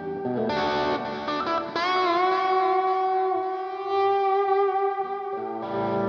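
Overdriven electric guitar playing a blues lead. A note bends up about two seconds in, and the long held notes waver with vibrato.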